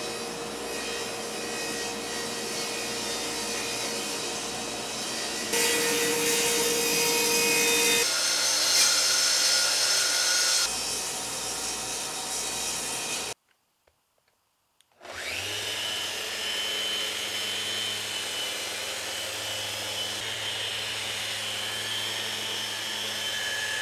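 Table saw running with a steady hum, louder for about five seconds while the blade cuts through a walnut panel, then cut off. After a short gap, a Festool random-orbit sander spins up with a rising whine and runs steadily on the walnut.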